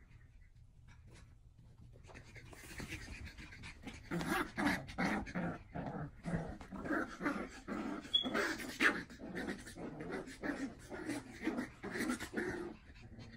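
Cocker spaniel panting hard in quick, irregular breaths, starting about two seconds in and stopping just before the end.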